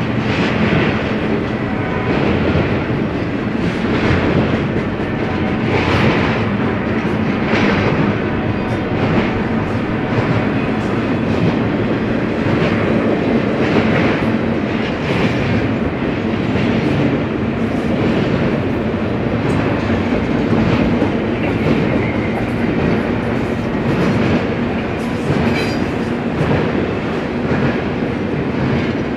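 Double-stack intermodal container cars of a BNSF freight train rolling past: a steady rumble of steel wheels on the rails, with a click-clack every second or two as wheel sets pass.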